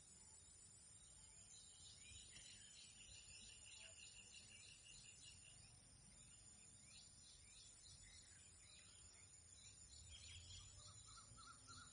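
Faint jungle ambience: many small birds chirping in quick short notes, one holding a steady whistled note for a few seconds, over a steady high-pitched insect drone.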